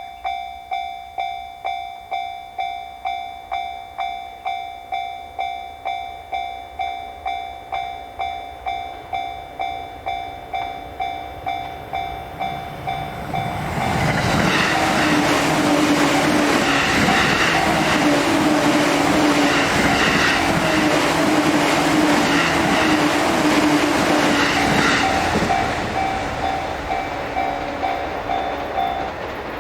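Japanese level-crossing warning bell ringing with a steady 'kan-kan' beat, a little over two strikes a second. About halfway through, an electric train passes close by, its wheels clattering over the rail joints for about twelve seconds and drowning out the bell. The bell is heard again as the train fades near the end.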